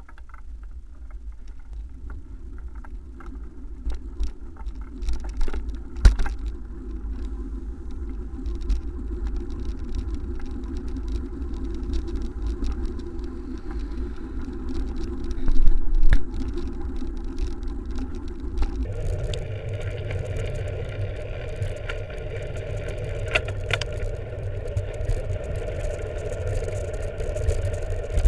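Steady low rumble and rattling from a camera mounted on a moving bicycle, as the bike rolls along a paved road, with a loud knock about halfway through. About two-thirds through, the whole sound jumps higher in pitch as the footage runs at double speed.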